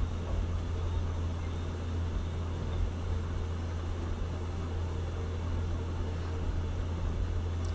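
Small balls of mashed potato deep-frying in a large pan of hot oil: a steady sizzle over a constant low hum.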